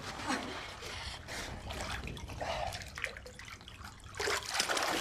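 Water trickling and splashing unevenly, growing louder and fuller about four seconds in.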